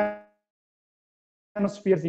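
A man's voice drawing out the end of a word, then about a second of dead silence before his speech resumes near the end.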